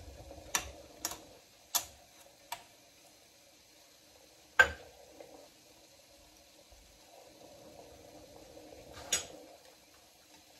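Kitchen utensils clinking: a metal spoon tapping and scraping against a small cup and pot, giving a handful of sharp clinks in the first few seconds, the loudest about halfway, and one more near the end. A faint steady hum runs underneath.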